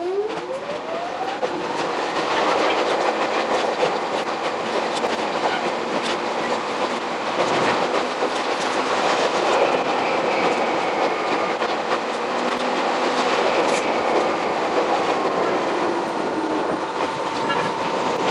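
Jomo Electric Railway 700-series electric train (ex-Keio 3000 series) pulling away from a station: a motor whine climbs steeply in pitch over the first two seconds, then the train runs on with steady wheel-and-rail noise and clatter.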